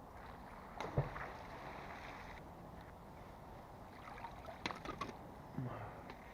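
Water splash about a second in, with a short wash of water noise after it, then a few sharp clicks and a low knock later on.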